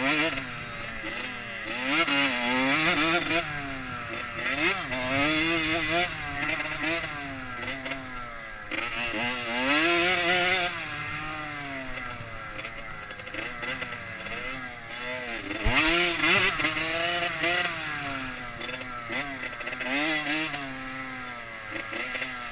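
Dirt bike engine heard from the rider's helmet, revving up and dropping back over and over with the throttle, with several louder surges of acceleration.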